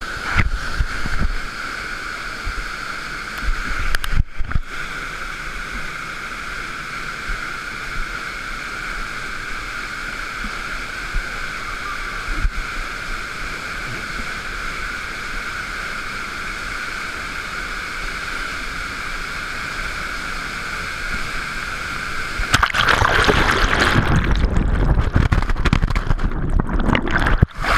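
Steady rush of a mountain stream and waterfall, turning louder and fuller about three-quarters of the way through.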